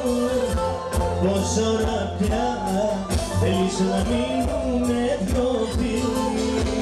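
Live band music: a man and a woman singing a duet into microphones over band accompaniment with plucked strings and a steady beat.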